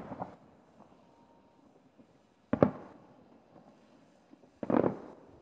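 Aerial firework shells bursting: two sharp booms, about two and a half seconds in and near the end, each trailing off in a rumble, the second one longer and deeper, with the fading tail of an earlier boom at the start.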